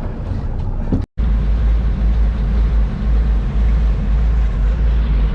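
Fishing boat's engine running: a steady, loud low rumble with a haze of hiss over it, broken by a moment of silence about a second in.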